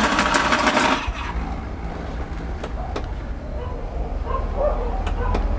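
Honda motorcycle's electric starter cranking and the engine catching, the cranking stopping about a second in, then the engine idling with a steady low rumble; the owner suspects a worn-out starter clutch. A dog barks faintly in the background.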